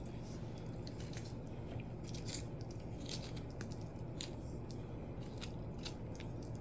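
Irregular light clicks and scrapes of a jalapeño pepper half being deseeded by hand, seeds and pith scraped out against a cutting board, over a steady low hum.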